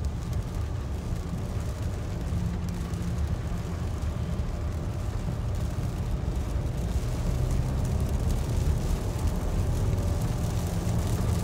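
Steady low rumble inside a moving car's cabin: tyre and engine noise on a rain-soaked road, growing slightly louder in the second half.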